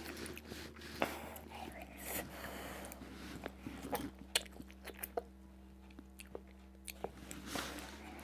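Crisp fried puri shells of fuchka (panipuri), filled with spiced potato, being bitten and chewed: scattered quiet, sharp crunches.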